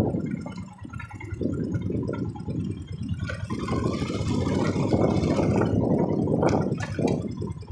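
Motorcycle engine running on the move, with an uneven low rumble that grows louder and hissier about three seconds in and eases off again near the end.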